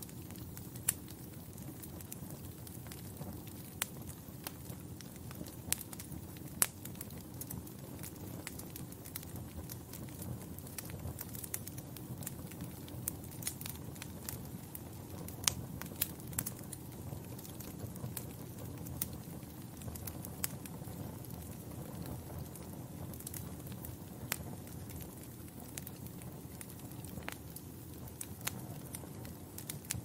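Wood fire crackling in a fireplace: a steady low rush of flame with irregular sharp pops and snaps scattered throughout.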